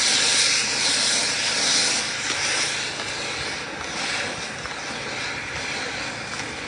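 Loud, steady rushing hiss of air from a running blower, loudest over the first two seconds and then easing down.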